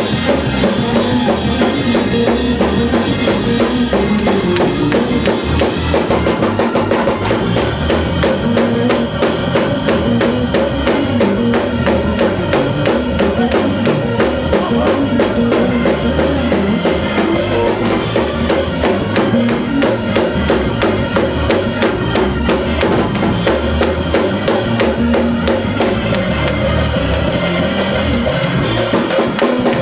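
Church praise-break music: a tambourine keeping a fast, steady beat over a drum kit and bass.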